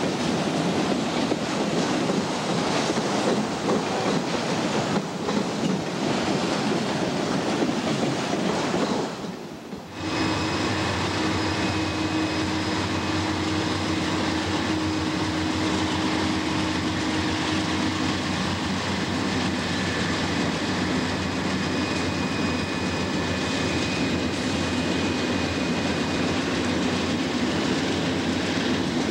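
Freight trains passing close by: the steady rumble and clatter of diesel locomotives and auto-rack cars on the rails. About a third of the way in the sound cuts out briefly and a second train, led by Canadian National GE C44-9W diesel locomotives, takes over, with thin steady high-pitched tones over the rumble for several seconds.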